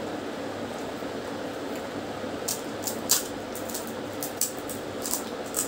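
Crisp fried fuchka (pani puri) shells cracking and crunching as they are broken by hand and chewed: a run of short, sharp crackles starting about halfway through, over a steady low hum.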